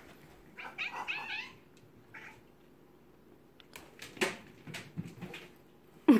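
Domestic cat meowing about a second in, with a shorter call after it. A few light clicks follow, then a short, loud sharp sound right at the end.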